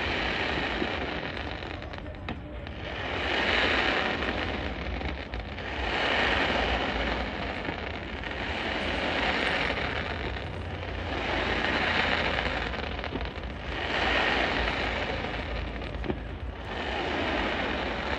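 Fireworks crackling: volleys of crackling comets give a dense crackle that swells and fades about every two to three seconds, seven waves in all. A steady low rumble runs underneath.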